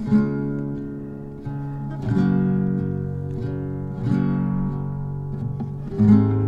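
Background music: acoustic guitar strummed and plucked, chords changing every second or two.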